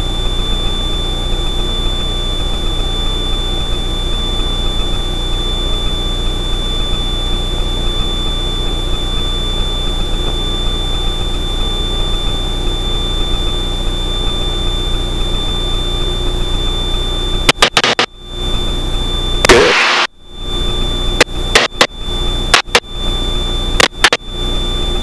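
Steady drone of the Extra 300L's six-cylinder Lycoming engine and propeller at cruise power, prop set to 2400 RPM, heard through the cockpit intercom with a constant thin high whine over it. In the last several seconds the sound cuts out briefly a number of times, with one short burst of noise.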